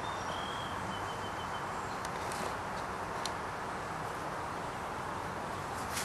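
Steady outdoor background hiss, with a faint high thin tone lasting about a second near the start and a few soft clicks.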